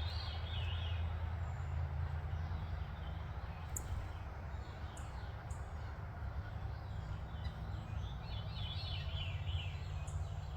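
Backyard birds chirping and singing, at the start and again about eight seconds in, over a steady low background rumble.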